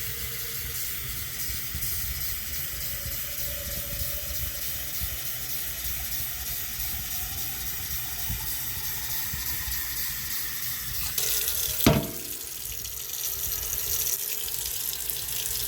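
Steady rush of flowing water, with a single sharp bump about twelve seconds in.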